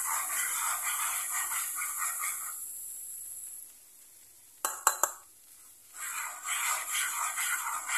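Wire whisk scraping and stirring a thick butter-and-flour curry roux in a metal frying pan, a steady scratchy rasp that fades out after about two and a half seconds. A few sharp clicks come just past halfway, and the whisking starts again for the last two seconds.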